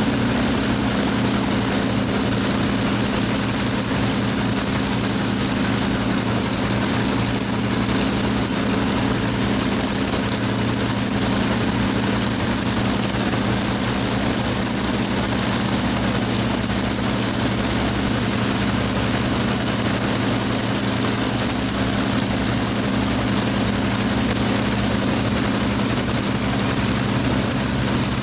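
Avro Lancaster's Packard-built Rolls-Royce Merlin V-12 engine running steadily, its propeller turning.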